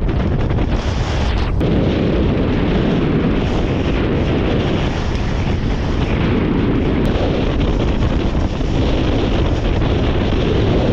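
Strong wind buffeting the microphone, a loud steady rumble that barely lets up.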